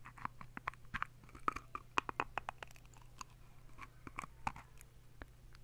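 Teeth grinding and chewing close to the microphone: faint, irregular small clicks and crunches, several a second, over a low steady hum.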